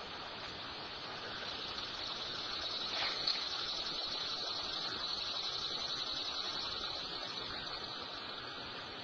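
A steady outdoor background hiss with no distinct events, apart from one faint tick about three seconds in.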